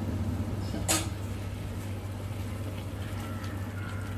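A spoon knocks once against the cooking pan about a second in, over a steady low hum.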